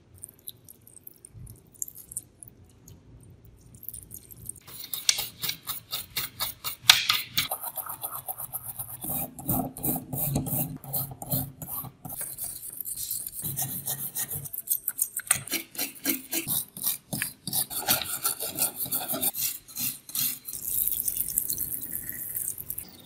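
A brush scrubbing rust off wet steel coil springs and other scale parts in quick back-and-forth strokes, starting about five seconds in.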